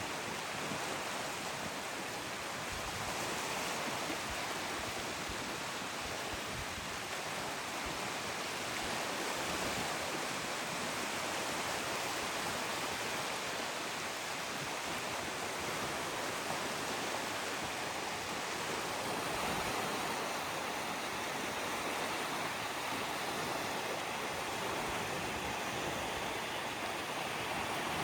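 Ocean surf washing on a shore: a steady rush of breaking waves that swells gently now and then.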